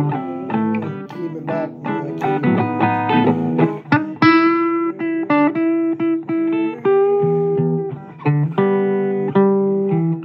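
Blues guitar playing an instrumental passage of picked notes and chords, with one long held note about four seconds in.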